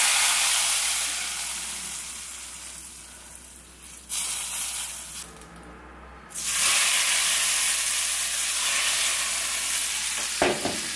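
Hot coconut-oil tempering of mustard seeds, dried red chilli and curry leaves sizzling as it is poured into liquid rasam. There are three bursts: a loud one at the start that fades over a few seconds, a brief one about 4 s in, and another about 6 s in as the rest is ladled out of the pan. A short clink comes near the end.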